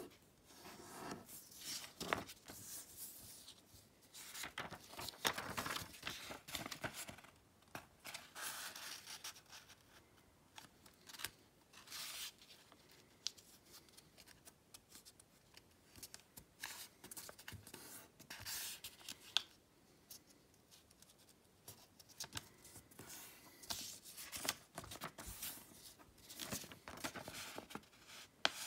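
A square sheet of origami paper being folded and creased by hand: irregular rustling, sliding and sharp creasing strokes as fingers run along the folds.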